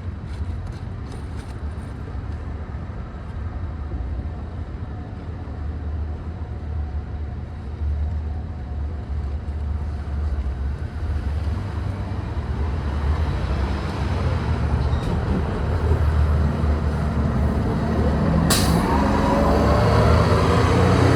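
Low, steady rumble like a running vehicle engine, slowly growing louder, with a single sharp burst of noise near the end.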